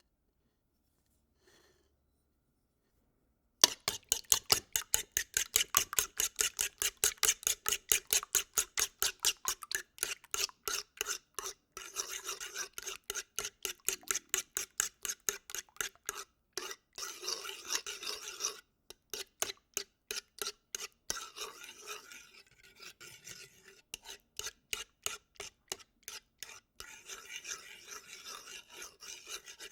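Scrambled eggs being stirred briskly, a utensil scraping against the dish in a rapid rhythm of about five strokes a second, starting a few seconds in after near silence, with a few short pauses.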